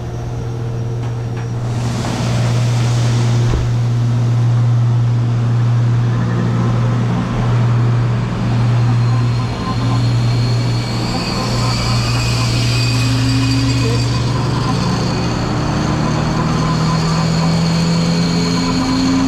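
Farm machinery running steadily with a deep, even drone while a wagon of corn is unloaded, with a brief hiss about two seconds in.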